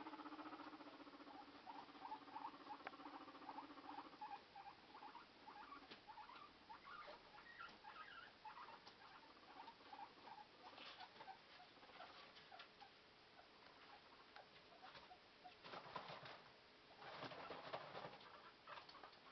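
Guinea pigs squeaking faintly in short, rising chirps, about three a second, over a low hum that stops about four seconds in. The squeaks die away, and near the end come two bursts of scuffling and rustling as the guinea pigs run about in the cage bedding.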